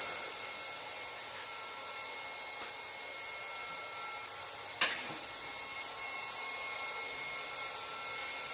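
Cooling fan of a Tuxing 4500 PSI PCP air compressor running steadily with a faint high whine, left on to cool the machine after a fill. A single sharp click about five seconds in.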